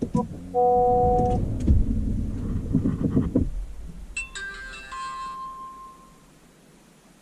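Rexing dash cam's electronic chime tones, with a short run of notes as it powers on and another set of tones near the middle as it shuts itself off. The camera keeps losing power because the tapped fuse gives no steady accessory power.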